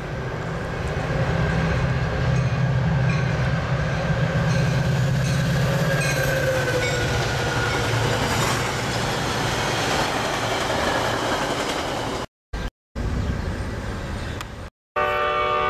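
Metra commuter train of bilevel gallery cars passing at speed, a steady rumble of wheels and locomotive with a tone that slides down in pitch about six seconds in. Near the end the sound breaks off twice, then a multi-chime locomotive horn chord starts to sound, which the caption takes for a mix of P5 and K5LA horns.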